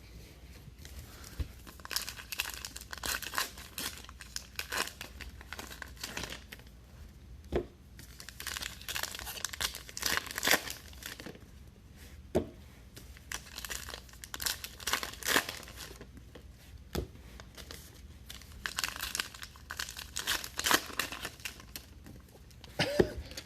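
Foil wrappers of Topps Archives baseball card packs being torn open and crinkled, in several bouts of ripping.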